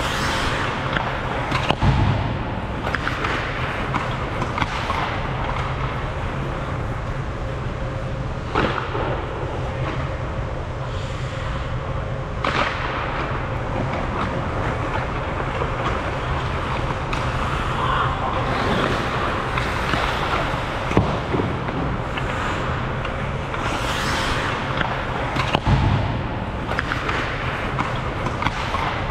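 Ice hockey skates scraping and carving across the ice in repeated swishes, with a few sharp clacks of sticks and puck, over a steady low hum.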